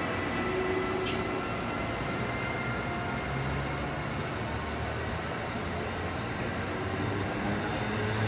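Amtrak passenger train pulling away behind an ACS-64 electric locomotive, its Amfleet coaches rolling past on the rails with a steady rail rumble that swells louder about halfway through.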